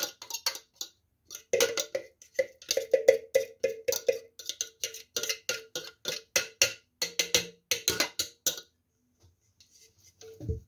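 A spoon tapping and scraping inside a clear plastic food-processor bowl to knock chopped black cabbage out, quick taps about four a second with a ringing note. After a short pause, a low thump near the end.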